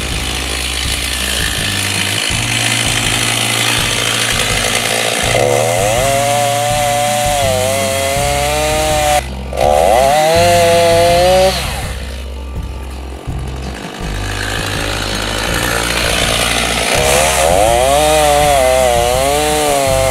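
Gas-powered two-stroke Stihl chainsaw with a long bar bucking a log, its engine pitch rising and sagging as the chain works through the wood. It eases off briefly a few times between cuts.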